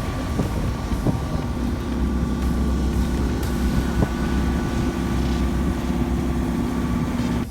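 Sailboat's inboard engine running steadily under way, a constant low drone with wind and water noise, and a few light knocks early on.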